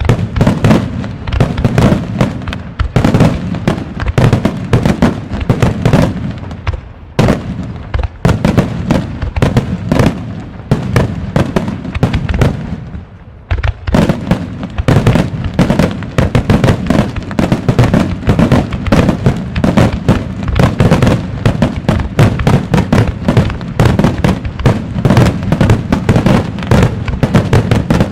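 Wide starmine fireworks: a dense, rapid barrage of aerial shells launched and bursting in quick succession, loud bangs overlapping one after another. The barrage thins briefly about halfway through, then picks up again.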